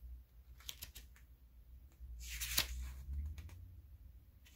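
Pages of a small paper user manual being opened and turned by hand: a few soft ticks about a second in, then a rustling swish of paper about halfway through.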